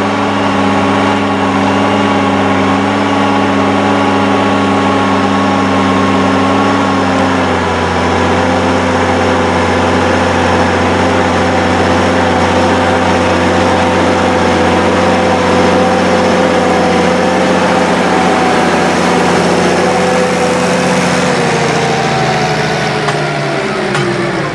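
SAME Titan 190 tractor's six-cylinder turbo diesel running steadily under the heavy load of pulling a two-furrow plough. Its pitch steps down slightly about seven seconds in, and falls near the end as the tractor passes close by.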